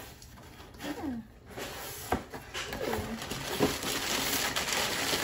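Crumpled brown kraft packing paper rustling and crinkling as it is pulled out of a cardboard box, starting about a second and a half in, with a few sharp crackles. Before it, a couple of short falling vocal sounds.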